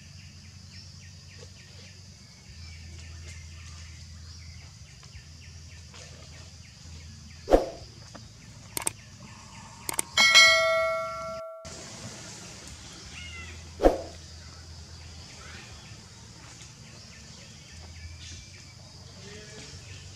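A click and then a bright bell chime, the sound effect of a pop-up subscribe button, about ten seconds in. The chime rings for a second or so and cuts off suddenly. Two sharp, short sounds come a couple of seconds before it and a few seconds after it, over a steady outdoor background.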